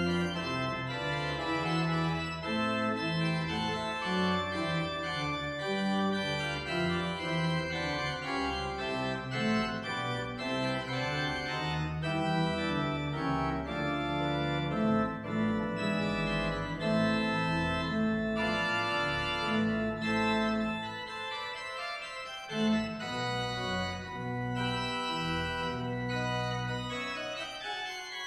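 Church organ playing slow sustained chords with a moving melody line above them. The sound thins out briefly about three quarters of the way through before the chords resume.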